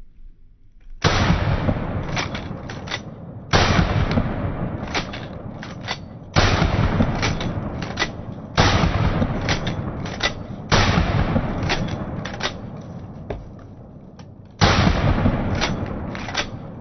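Pump-action shotgun fired six times, a few seconds apart. Each shot trails off in a long echo, and sharp clacks of the pump action being worked fall between the shots.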